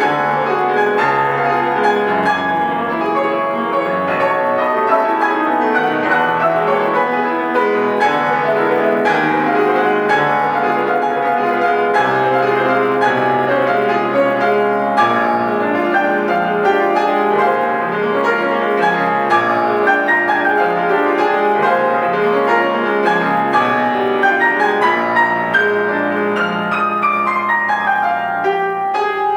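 Solo acoustic piano playing classical music, with dense notes throughout and a quick falling run near the end.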